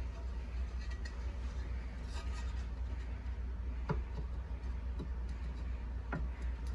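A few light clicks and knocks from handling a turntable's parts, over a steady low hum.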